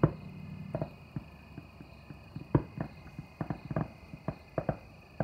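Distant fireworks going off: about a dozen irregular sharp bangs and pops, several in quick succession in the second half, over a faint steady hum.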